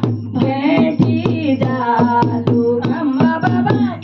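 Women singing a devotional bhajan through microphones and a PA amplifier, with a drum beating a steady rhythm underneath.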